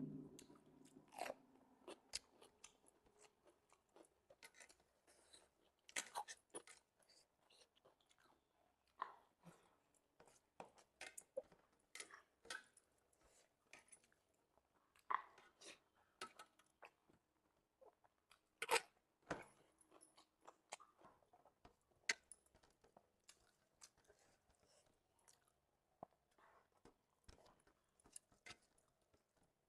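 A person eating close to the microphone: faint chewing and mouth clicks with occasional sharp crunching bites, the loudest about 19 seconds in.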